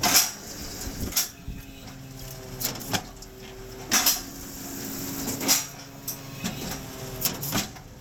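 Cotton module builder working: a steady machinery hum with irregular metallic clanks and knocks, roughly one a second.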